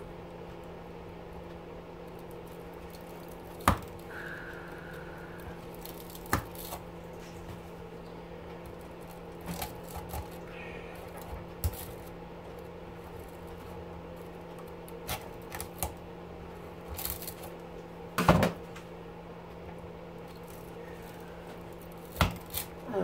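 Scattered clicks, knocks and scrapes of a hand tool prying and breaking brittle copper windings out of an electric motor stator clamped in a steel bench vise, the loudest knock a little after halfway, over a steady low hum.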